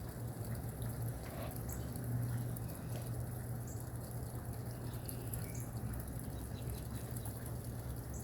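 Rain dripping and pattering, with scattered small drips and ticks over a steady low hum.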